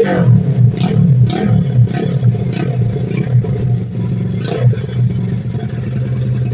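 Small motorcycle engine running with uneven revving and clattering, settling to a steady idle near the end.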